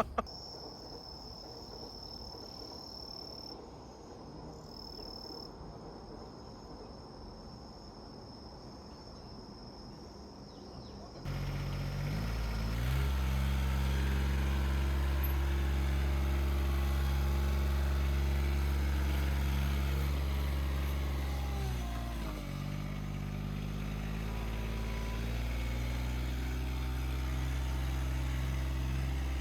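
A faint, steady, high-pitched insect drone, then about eleven seconds in a machine's engine cuts in suddenly and runs steadily and loudly. Its pitch sags and recovers about ten seconds later, and dips again at the very end.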